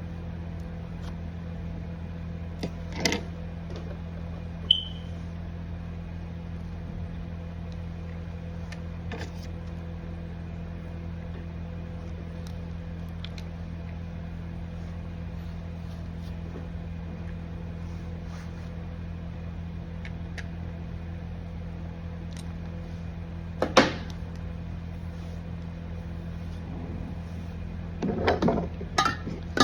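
A steady low electrical hum, like an appliance or motor running. A few sharp clicks come through it, and a brief high beep sounds about five seconds in.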